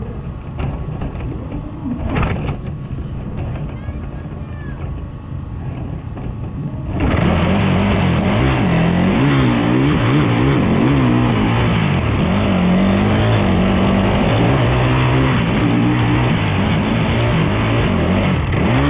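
ATV engine, a low rumble at first, then much louder and close from about seven seconds in, its revs rising and falling repeatedly as the throttle is worked.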